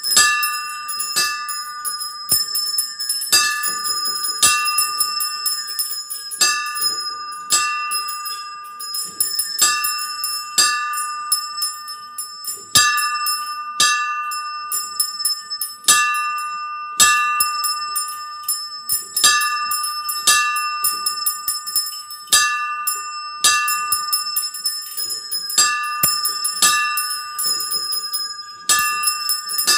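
Small bronze bells of a miniature bell-tower model ringing in a quick, uneven run of strikes, several tones ringing over one another. The small side bells are being swung full circle on their wooden yokes.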